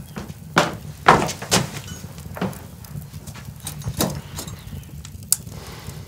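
Footsteps on wooden floorboards: a few heavy knocking steps close together, then slower, spaced steps over a low steady hum.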